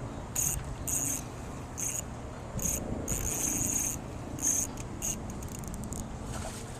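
Fishing reel buzzing in short, irregular, high-pitched bursts, about nine of them, the longest near the middle lasting almost a second, as a hooked bass pulls line against the drag.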